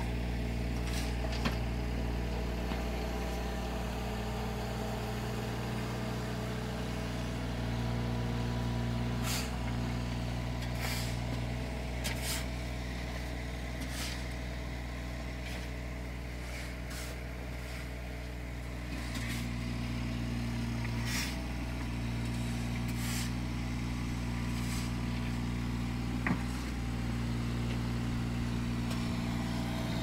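Engines of small construction machines, a mini crawler dumper and a mini excavator, running steadily. The engine note swells twice for a few seconds, about a third and two thirds of the way through. Scattered short scrapes and knocks sound over it.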